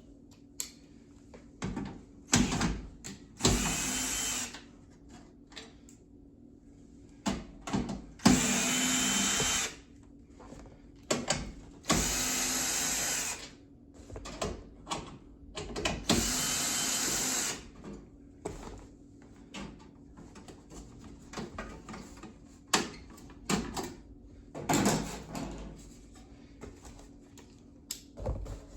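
Power drill-driver with a nut-driver bit running in short bursts of one to two seconds, about five times, backing out the screws of a PTAC unit's cabinet. Sharp clicks and knocks from handling the screws and panels come in between.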